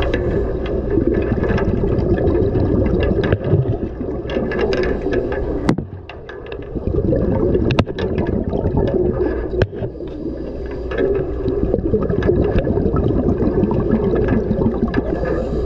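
Underwater sound heard through a camera housing: a dense, muffled rush of water and bubbling, with scattered sharp clicks. It drops away briefly about six seconds in, then builds again.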